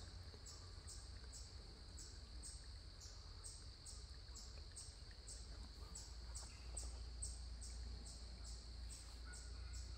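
Faint insect chirping: a steady run of short high chirps, about two to three a second, over a low rumble.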